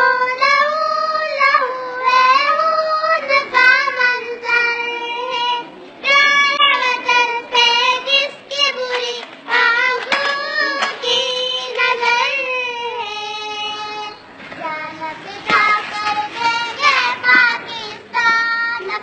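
Children singing a Pakistani national song, a high melody carried in one clear line.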